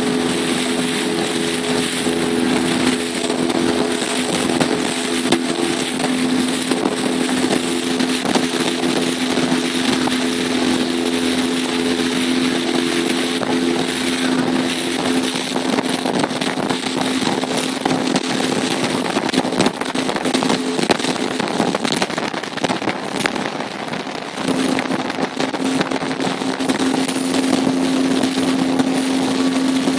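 Engine of a small motorboat running steadily at cruising speed, a constant hum under wind on the microphone and water rushing past the hull. The engine note weakens and wavers about halfway through and comes back strong near the end.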